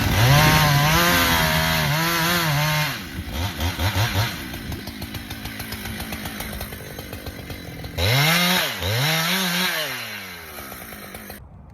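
Husqvarna chainsaw cutting the face notch in a red maple trunk, its engine pitch dipping and recovering under load. About three seconds in it drops to a rattling idle, revs up twice about eight seconds in, then settles back to idle.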